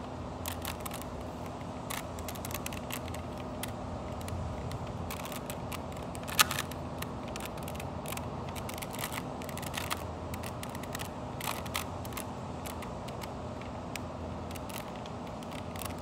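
A 3x3 Rubik's cube being turned by hand: irregular quick plastic clicks as its layers are twisted, with one louder click about six seconds in.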